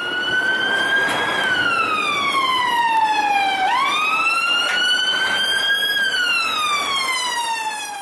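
Police siren wailing: a single tone with several overtones that rises and falls slowly in pitch, twice over.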